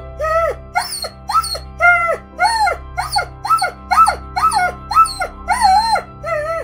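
A poisoned dog in grave condition crying out in repeated high, arching yelps, about two a second, a sign of her distress. A soft, steady music bed plays underneath.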